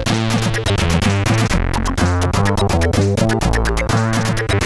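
Commodore 64 demo music from a SID sound chip or SID replacement chip, taken straight from the computer's audio output: electronic chip music with a steady bass line, quickly stepping notes and regular drum hits.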